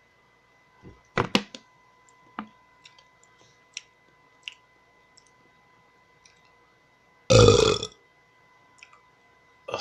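A person belches loudly once, about seven seconds in, a deep burp lasting about half a second, brought up on purpose after drinking fizzy pop. A few short clicks and knocks come before it, in the first couple of seconds.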